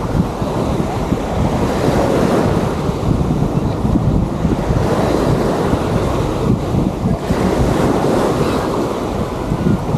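Wind buffeting the microphone over the continuous wash of waves on a sandy beach.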